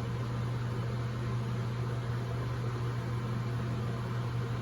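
A steady low hum with a constant hiss behind it, unchanging throughout.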